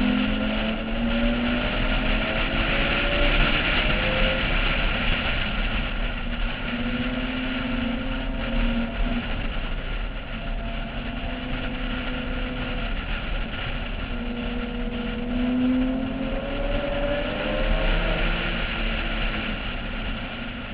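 Porsche 996's flat-six engine at racing speed, its pitch climbing under acceleration and falling back several times, with wind rushing over the roof-mounted camera.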